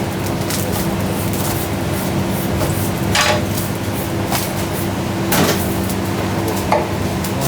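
Kitchen clatter: scattered knocks and clinks of utensils and dishes, the clearest about three seconds in and again a little past five seconds, over a steady low hum of kitchen equipment.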